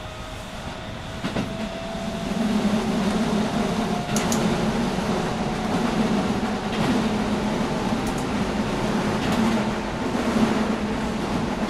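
Running sound of a Shin-Keisei 8900-series electric train with a Mitsubishi IGBT inverter: a steady rumble of wheels on track that grows louder about two seconds in, with a faint whine rising slowly in pitch over the first few seconds and a few sharp clicks.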